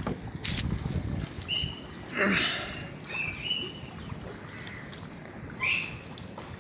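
Wind on the microphone over open water, with several short high chirping bird calls and one louder harsh call about two seconds in.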